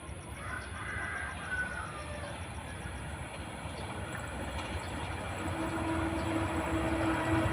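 Diesel-hauled passenger train approaching at speed, its low rumble growing steadily louder. A steady tone joins in during the last two seconds.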